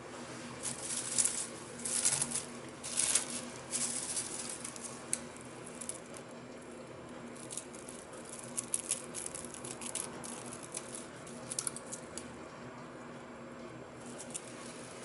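Crisp rattling and rustling, as of small dry pieces being handled, in irregular clusters that are busiest over the first few seconds and thin out later, over a steady low machine hum.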